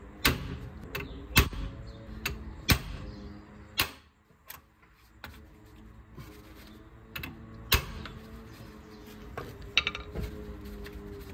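Hammer blows on a hand impact driver with a hex bit set in a brake disc retaining screw whose head is starting to strip. About half a dozen sharp metallic strikes at irregular spacing, with a pause of a few seconds in the middle.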